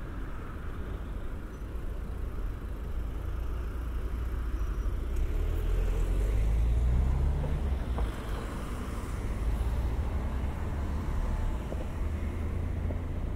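A car passing on the nearby road. Its low rumble swells to its loudest about halfway through, with a slight rise in engine pitch at the peak, then fades.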